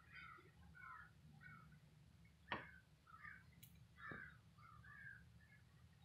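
A large flock of crows calling, with many faint short calls overlapping. A sharp click comes about two and a half seconds in, with a lighter one about four seconds in.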